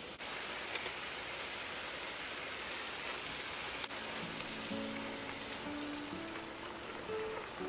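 Pieces of fatty pork sizzling in a little water in a hot pan, a steady hiss starting suddenly just after the start. Background music with held notes comes in from about four seconds in.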